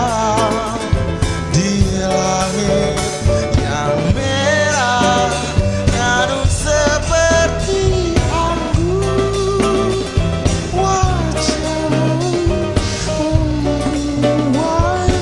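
Instrumental passage of a song: a wavering, sung-like melody line over guitar and changing bass notes, with a steady beat.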